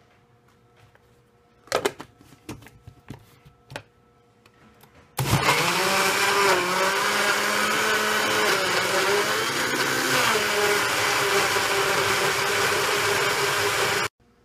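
Countertop blender running at full speed for about nine seconds, blending chunks of peach, pineapple and blueberries into a smoothie; its whine sags and recovers as the fruit loads the blades, then cuts off suddenly. Before it starts there are a few light knocks and clicks.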